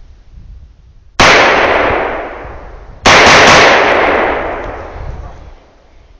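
AR-15 rifle firing .223 rounds: a loud shot about a second in, then another loud report, with quick extra cracks, about two seconds later. Each one rings out in a long echo that fades over about two seconds.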